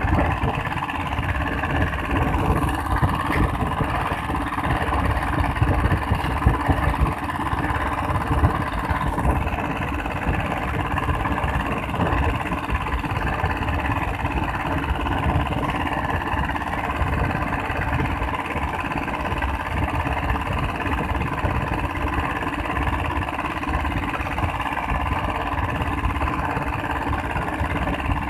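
Small single-cylinder stationary diesel engine driving an outrigger fishing boat, running steadily at an even speed.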